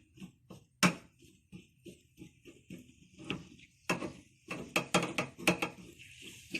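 A utensil clinking against a ladle while a warming honey, olive oil and spice mixture is stirred: a run of light metallic taps, roughly two a second, a few of them louder.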